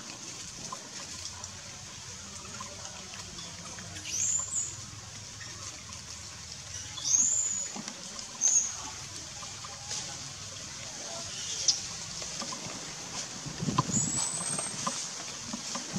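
Forest ambience: a steady high hiss with a few short, high, sweeping bird chirps scattered through, and a low rumbling noise in the last few seconds.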